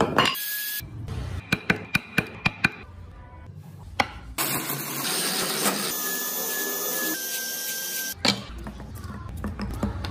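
Workshop tool sounds in quick cuts. First a rapid run of sharp taps and knocks. Then a small hand-held rotary carving tool runs with a steady whine over a hiss as it cuts tread grooves into a small wooden toy wheel; its pitch drops slightly a second before it stops and gives way to a lower tool noise.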